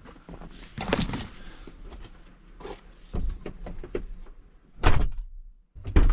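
Knocks and rustling of a camera being handled and set down, with one loud thump about five seconds in, then a moment of dead silence where the recording cuts.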